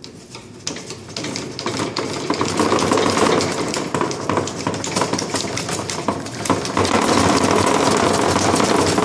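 Hand-cranked water pump being turned fast: a continuous rapid mechanical rattle and whir that builds up over the first two or three seconds and grows louder again about seven seconds in.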